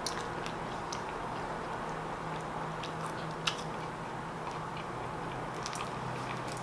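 A person biting and chewing a mouthful of fried chicken sandwich close to the microphone, with small scattered mouth clicks and one sharper click about three and a half seconds in, over a steady low hum.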